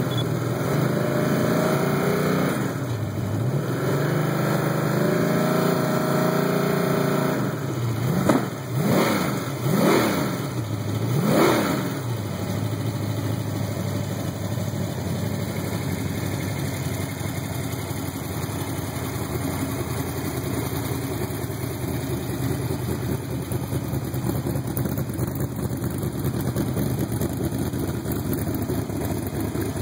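Chevrolet small-block 383 stroker V8 with a stage 2 roller cam, running on an engine run stand through headers and mufflers. It idles, is blipped three times about eight to twelve seconds in, then settles back to a steady idle.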